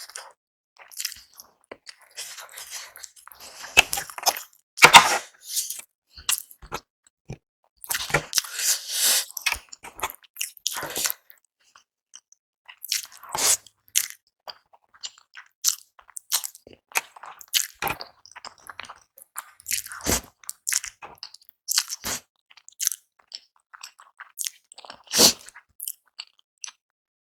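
Close-miked eating: wet mouth sounds of chewing and smacking on spicy instant noodles and boiled eggs, in many short irregular bursts with a few louder clusters.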